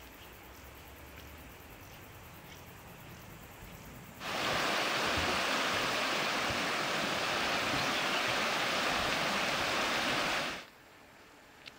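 Rushing water, a loud steady hiss that starts abruptly about four seconds in and cuts off just as abruptly about six seconds later. Before it there is only faint outdoor background with a few light ticks.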